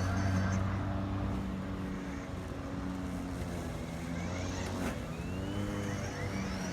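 Kobalt brushless self-propelled electric lawnmower running with a steady hum.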